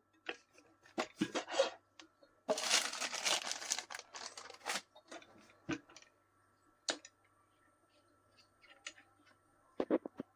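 Packaging handled during an unboxing: a stretch of about two seconds of tearing and crinkling near the middle, with scattered clicks and knocks before and after.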